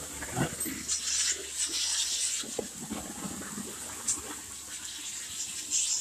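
Shotcrete sprayed from a hose nozzle with compressed air: an uneven hissing gush that swells and fades several times.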